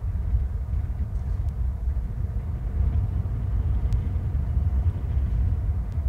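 Wind buffeting the microphone: a steady, low rumble that rises and falls irregularly, with a couple of faint ticks, one about a second and a half in and one near four seconds.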